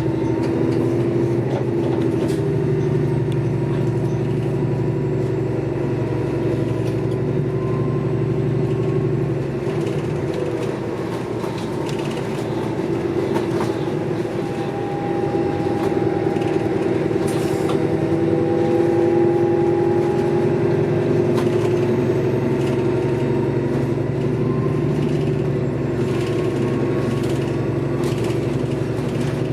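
Interior of a moving city bus: a steady drivetrain hum with a whine that rises and falls slightly in pitch as the bus changes speed, and occasional small rattles. A lower hum drops away about ten seconds in.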